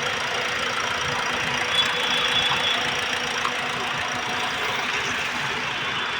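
A car engine running steadily, with a faint high whine about two seconds in.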